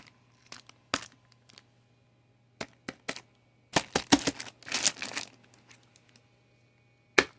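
Cardboard toy box being opened by hand: scattered sharp clicks and taps, a denser run of rustling clicks about four to five seconds in, and one loud click near the end.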